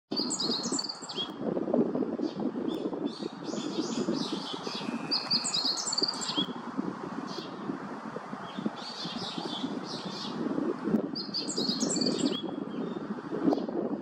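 Small songbirds chirping in several bursts of quick high notes, over a steady low rumble of background noise.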